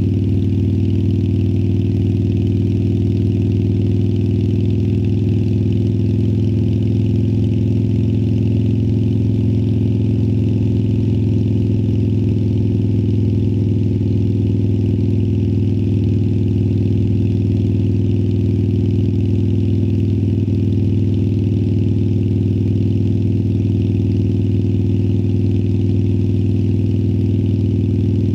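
2018 Harley-Davidson Sportster Iron 1200's air-cooled 1200 cc Evolution V-twin running through Vance & Hines Twin Slash slip-on mufflers. It holds a steady low exhaust note at an almost unchanging pitch, with no revving or gear changes.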